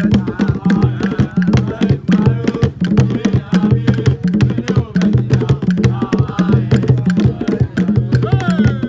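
Music with a busy, fast drum beat over a repeating bass line, and a gliding melody line above it.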